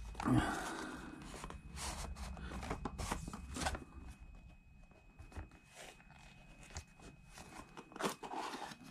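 Small cardboard boxes being handled and opened: scraping, rustling and light taps of thin card as a brown inner box is taken from its retail box and its flap pried open. Busiest in the first few seconds, with a few sharp taps near the end.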